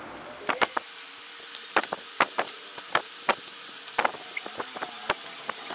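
Close-miked handling of crispy deep-fried cheese balls, lettuce and wooden chopsticks at a table: a run of sharp, irregular crackles and clicks, some dozen or more, starting about half a second in.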